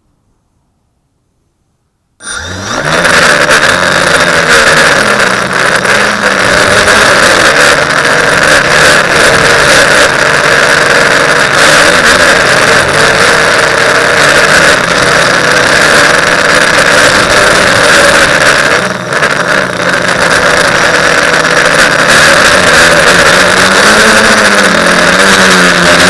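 TBS Discovery quadcopter's electric motors and propellers whirring, with a pitch that wavers up and down with the throttle. It cuts in suddenly after about two seconds of silence and dips briefly about two-thirds of the way through.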